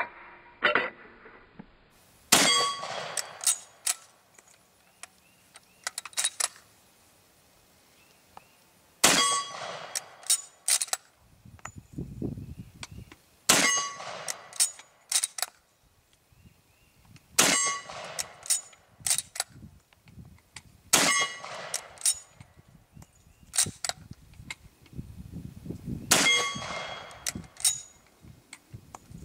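Six shots from a Swiss M78 Vetterli bolt-action rifle, each followed by a ringing clang of a steel plate target. Sharp metallic clicks between the shots as the bolt is worked.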